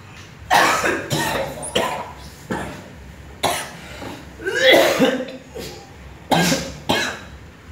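A man coughing hard in a string of short, harsh coughs, with a longer strained vocal cry about halfway through.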